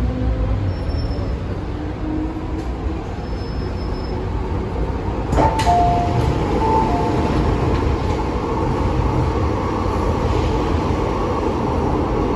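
MTR M-train electric multiple unit rumbling steadily. About five seconds in there is a sharp click followed by brief high tones.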